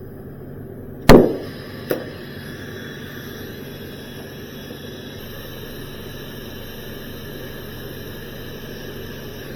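A steady mechanical hum with hiss, broken about a second in by one loud clank and a lighter knock just after.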